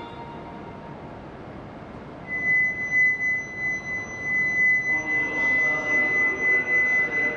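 A station platform's electronic warning tone starts about two seconds in and holds one steady high pitch, sounding as the train departs after the departure melody. A voice-like announcement comes in over it near the end.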